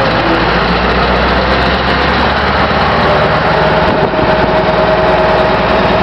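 Scania R620's V8 diesel engine running steadily as the truck drives, heard from inside the cab along with road noise. A faint steady whine joins in about halfway.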